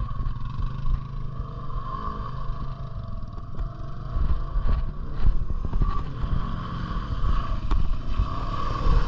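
Off-road vehicle engine running under load as it drives, its pitch rising and falling repeatedly with the throttle, with a few short knocks along the way.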